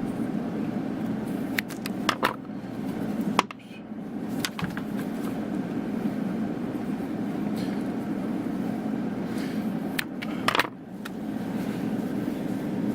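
Heat gun blowing steadily, softening polyethylene plastic wrapped over a broken surf rod. A few sharp clicks from handling, and the blowing dips briefly twice.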